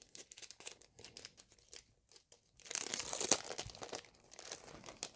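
Clear plastic packaging of a sheet of adhesive pearls crinkling as it is handled. There are light rustles and ticks, with a louder burst of crinkling about three seconds in.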